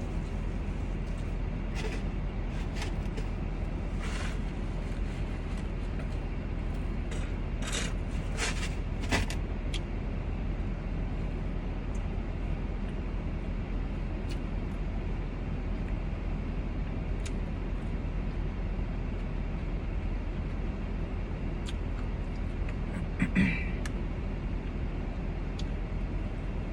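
Steady low hum of a car idling, heard from inside the cabin, with scattered short rustles and clicks in the first ten seconds or so.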